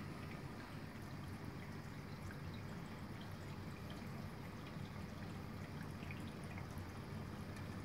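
Reef aquarium water trickling and splashing steadily as it circulates, with small drips, over a low steady hum.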